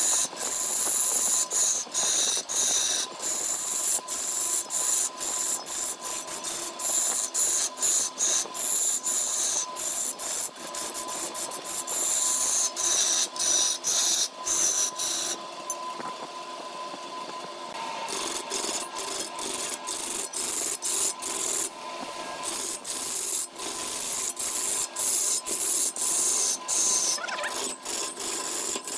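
A turning tool cutting into a wooden vase blank spinning on a lathe. The shavings peel off with a steady high hiss broken by many brief gaps, over a faint steady tone. The cutting eases off for about two seconds a little past halfway, then resumes.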